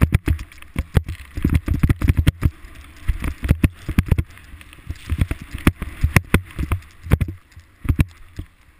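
Snow rushing and scraping under the rider while descending a ski slope, with wind buffeting the camera's microphone. There are frequent irregular knocks and thumps throughout.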